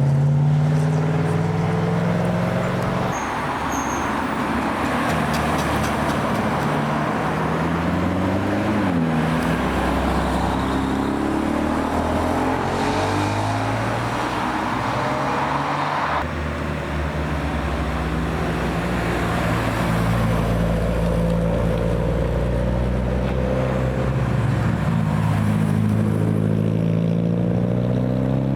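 Several car engines running together in slow traffic, pulling away and passing, their pitches rising and falling over steady road noise. There is an abrupt change in the mix about halfway through.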